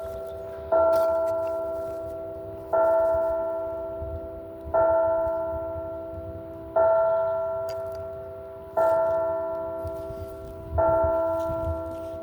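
A single church bell tolling at a slow, even pace, about one stroke every two seconds. Each stroke rings out and slowly fades before the next; six strokes, all at the same pitch.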